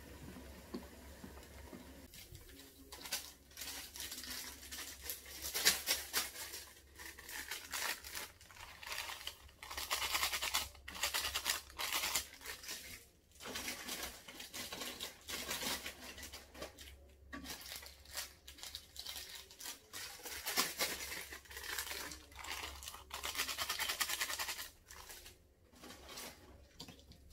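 Plastic instant-noodle seasoning packets being crinkled and torn open in irregular bursts of rustling.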